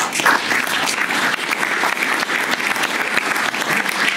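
Audience applauding steadily, a dense patter of many hands clapping that starts abruptly at the end of a speech.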